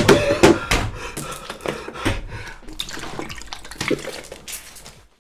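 A man hurriedly gulping water from a plastic bottle, the water sloshing and spilling down onto him, with a quick run of clicks and knocks from handling that is busiest in the first second.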